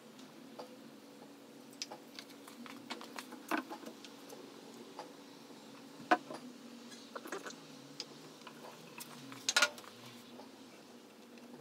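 Scattered light clicks and knocks from a plastic tung oil bottle and a metal boiled linseed oil can being handled and set down on a worktable, the sharpest knocks about six and nine and a half seconds in, over a faint steady hum.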